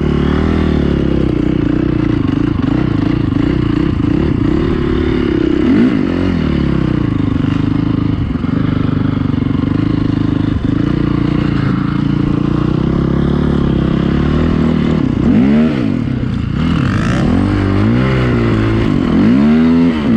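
Dirt bike engine running hard, its note holding fairly steady with small dips for most of the time, then rising and falling repeatedly over the last few seconds as the throttle is worked.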